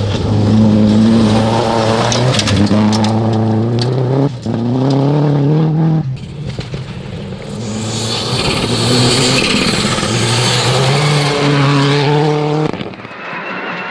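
Rally cars driven flat out on a gravel stage, engines revving hard, the pitch climbing and dropping in steps as they shift gears and lift. A spray of gravel and dirt hisses under the engine from about 8 to 12 seconds in, and the sound cuts off abruptly shortly before the end.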